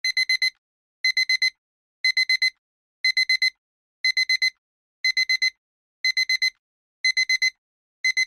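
Digital timer alarm beeping as the countdown hits zero: quick groups of four short, high beeps, one group every second.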